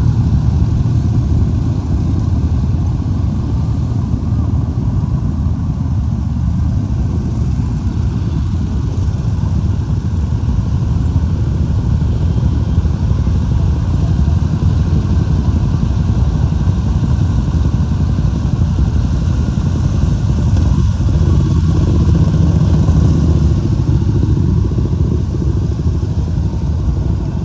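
A long procession of motorcycles, mostly big touring and adventure bikes, riding past one after another at a steady pace, their engines blending into one continuous low sound.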